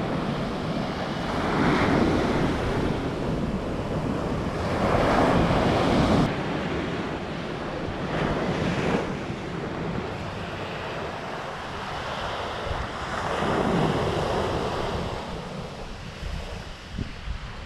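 Ocean surf breaking on a sandy beach, a wave washing in every few seconds, with wind buffeting the microphone as a low rumble.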